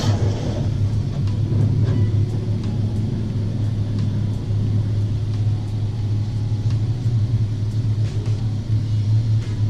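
BMW 428i's engine idling: a steady low hum.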